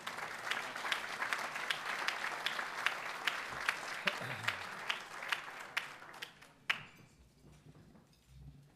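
An audience applauding, dying away about three-quarters of the way through, with one sharp knock as it ends.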